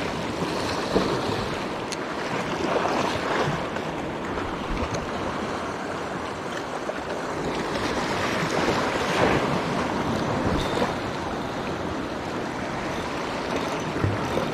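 Small waves washing in over shoreline rocks, swelling and easing, with wind buffeting the microphone.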